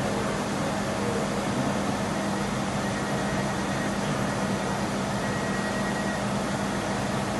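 Two-head laser fabric-cutting machine running steadily while it cuts printed fabric on its conveyor bed: a constant low hum over an even rushing noise, with a fainter higher tone.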